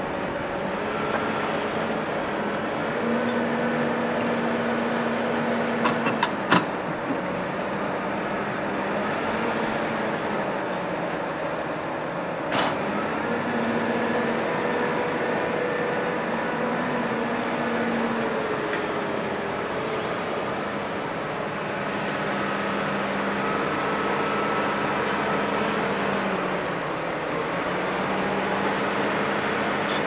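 Diesel engine of a Junttan PM25 piling rig running steadily, its pitch stepping up and down several times, with a few short metallic clanks about six seconds in and one sharp knock near the middle.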